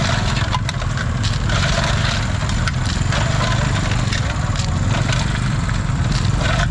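Steady low rumble with scattered clicks and splashes: live freshwater snails being scooped by hand from a metal basin of water, their shells knocking together, and dropped into a plastic basket.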